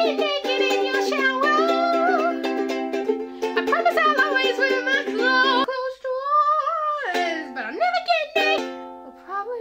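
A woman singing aggressively over strummed string-instrument chords. The chords drop out for about a second around six seconds in while her voice carries on, then come back.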